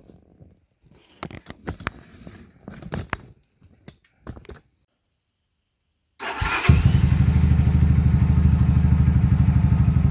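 A few light knocks and handling sounds, then, about six seconds in, the 250 cc engine of a Dongfang DF250RTS motorcycle starts up and idles steadily with an even pulse, freshly refilled with oil after an oil change.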